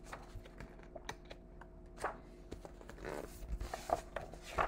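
A picture book being handled and turned around: soft rustles and light taps from its cover and pages, a few short ones scattered through, over a faint steady hum.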